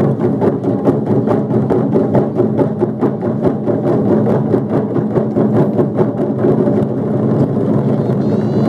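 Taiko drum ensemble playing: several large and small Japanese drums struck together in fast, continuous rhythmic drumming.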